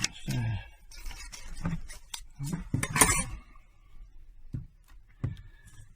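A series of irregular clinks and knocks, as of hard objects being handled and set down, the loudest about three seconds in.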